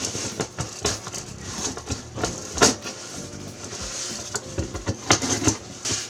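Hands handling an iPad and its accessories and packaging: a run of irregular sharp clicks and taps with rustling in between, the loudest tap a little over halfway through.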